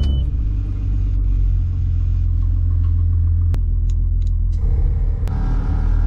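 A car's steady low rumble, with two sharp clicks, one about three and a half seconds in and one near the end.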